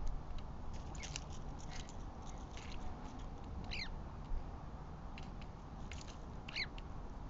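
Wild birds calling: scattered short chirps and two sharp calls that slide down in pitch, over a low steady rumble.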